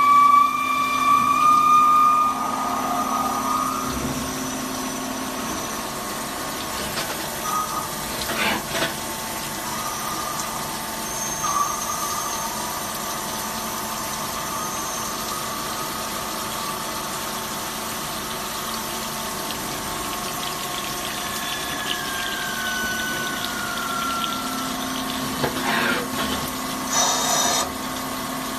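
CNC lathe machining a bar under flood coolant: a steady machine hum with held whining tones and the splash of coolant. About two-thirds through, a whine slides down in pitch, and a few short knocks sound, one about 8 seconds in and others near the end.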